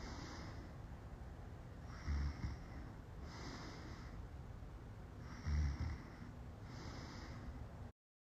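A woman passed out drunk, snoring in her sleep: two loud low snores about three and a half seconds apart, with softer noisy breaths in between. The sound cuts off suddenly near the end.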